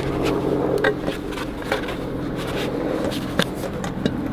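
A cardboard package being handled and opened: a few sharp clicks and knocks with some scraping, over a steady low hum.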